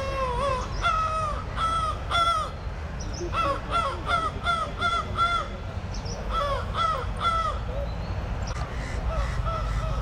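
Many crows cawing in quick, overlapping runs of short harsh calls, thinning out near the end, over a steady low rumble.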